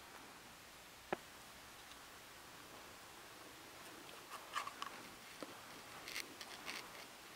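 Quiet room tone in a bare room, broken by one sharp click about a second in, then a run of soft rustles and scuffs in the second half.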